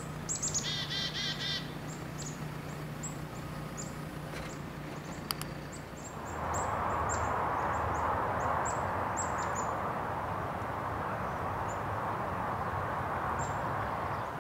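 Birds chirping: many short, high, falling chirps, with a rapid trill about half a second in. From about six seconds a louder, steady rushing noise comes in underneath.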